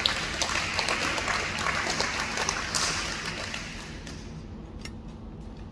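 Audience clapping, loudest at first and dying away about four seconds in.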